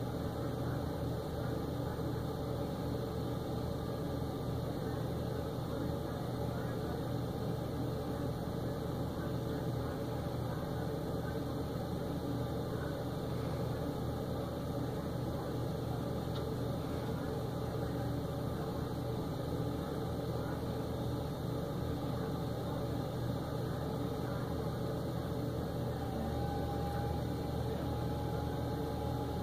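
Flatbed tow truck's engine idling steadily while it powers the hydraulics of the tilting bed. A thin steady whine joins in near the end as the car is drawn up the bed.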